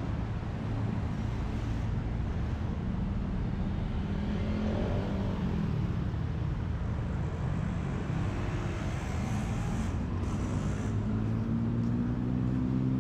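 Steady city road traffic, cars passing close by. One engine's low drone grows louder near the end.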